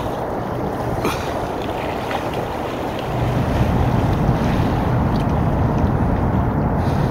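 Wind buffeting the microphone over open-water ambience. About three seconds in, a low steady engine drone joins it and the sound gets louder.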